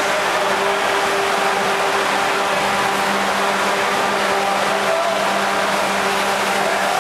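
Steady rushing machinery noise with a constant low hum, over churning, splashing water: the wind, spray and wave generation of an indoor survival-training pool.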